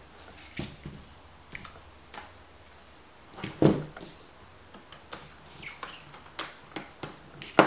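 Laptop handling at a table: a knock about three and a half seconds in as the Dell Latitude 2120's plastic case is set back down. Then a run of small clicks and ticks as a small screwdriver works on the screws in the base.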